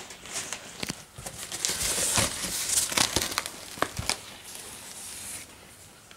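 Corrugated cardboard packaging rustling and crinkling as it is handled, with several sharp knocks among it. It is busiest in the middle and dies down about five and a half seconds in.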